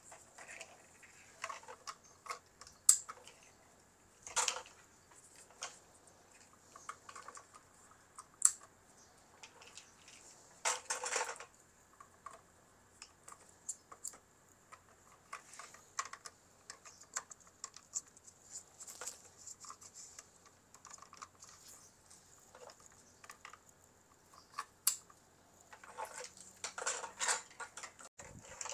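Scattered small plastic clicks and taps, with a few louder knocks and some rustling, as the ink-tube bundle and clear plastic tube guide of an Epson L805 printer are handled and pressed into place on the printhead carriage. A faint steady high hiss lies underneath.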